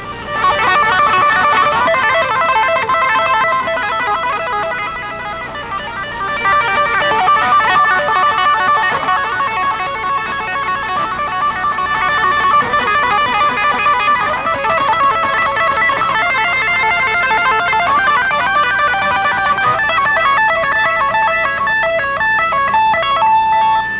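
Electric guitar solo played live through an amplifier: fast runs of lead notes, getting suddenly louder right at the start, with quick, clipped note patterns near the end.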